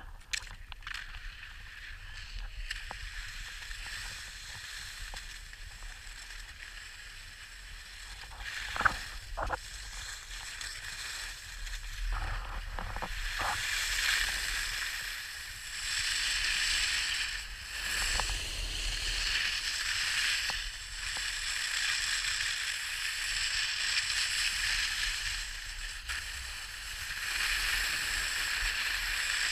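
Skis hissing and scraping over packed snow, swelling and fading every couple of seconds as the skier turns. A few sharp knocks come first, about nine to thirteen seconds in.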